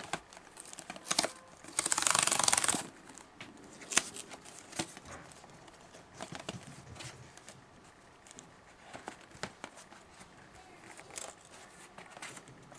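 A trading card pack's wrapper torn open, one ripping sound about two seconds in, followed by crinkling of the wrapper and light clicks as the cards inside are handled.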